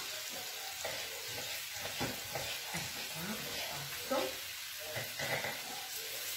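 Mushrooms and asparagus tips sizzling steadily in oil in a frying pan, with a few soft knife strokes on a wooden cutting board as squid is cut.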